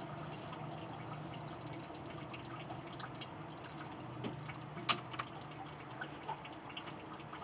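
Antifreeze dripping from the truck's cooling system into a drain pan, with scattered sharp ticks, the loudest about five seconds in, over a steady low hum.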